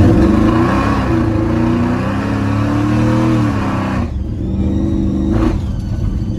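Supercharged big-block V8 in the truck running under way on its newly fitted, still untuned EFI. The engine pitch rises and dips a few times, then drops sharply about four seconds in and holds steady before it eases off near the end.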